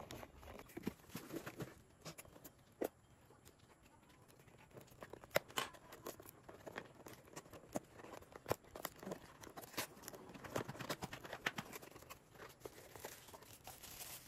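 Cardboard and paper packaging being handled by hand: scattered taps, scrapes and clicks as a small cardboard box is lifted out and its flap opened, then tissue paper crinkling near the end as the wrapped item is pulled out.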